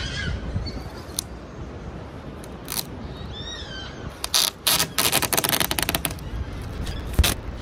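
Adhesive tape being pulled off the roll to mask the edge of a desk: a loud crackling rip lasting a couple of seconds from about four seconds in. Scattered clicks of handling come before and after it.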